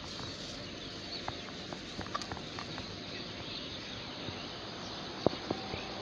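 Steady outdoor background hiss in a garden, with a few faint clicks and two sharper knocks near the end from litter being handled.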